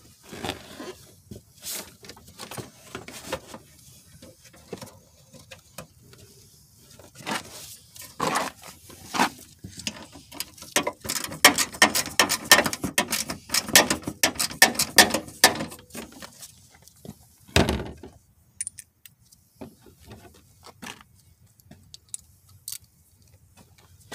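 Hand tools and plastic bumper parts being worked loose on a crash-damaged car front: scattered clicks and rattles, a run of rapid clicking in the middle, and one sharp knock about three-quarters of the way through.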